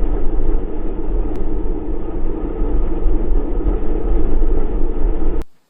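A loud, steady rumbling noise with a deep low hum, cutting off suddenly near the end.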